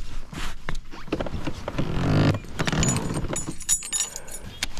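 Spinnerbait being handled after it is reeled in: its metal blades and wire arm jingle and clink against each other, with scattered clicks and knocks from handling the rod and reel. The metallic jingling is busiest about three to four and a half seconds in.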